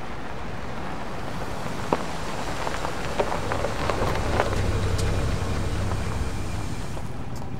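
Toyota car pulling up with its engine running and tyres crackling over the ground, growing louder through the middle and easing off near the end.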